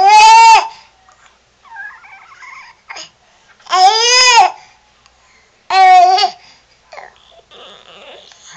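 Baby babbling in three loud, high-pitched squeals of about half a second each, the middle one rising and then falling in pitch.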